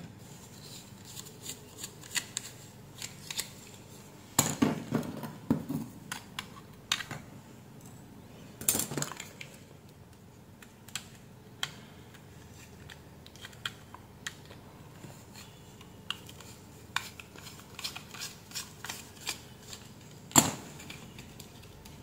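Scattered light clicks and scrapes of a small screwdriver working at a power bank's circuit board and plastic case, picking glue off the PCB's mounting screws, with a sharper click about twenty seconds in.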